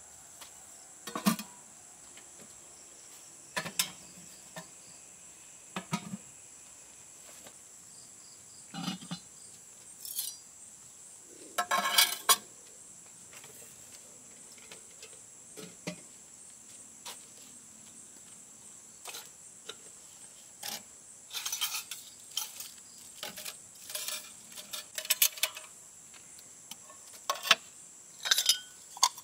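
Metal pots, pans and dishes clinking and knocking as they are set down one at a time on cement shelves, with a quicker run of clatter near the end. A steady high insect buzz carries on behind.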